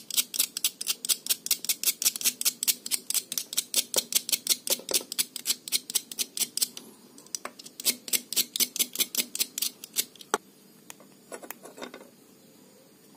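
Rapid scraping of a small metal tool along the metal legs of a C6092 horizontal output transistor, cleaning dirt off the leads before soldering. The strokes come about five a second, pause briefly about seven seconds in, then resume and end with a click and a few last strokes.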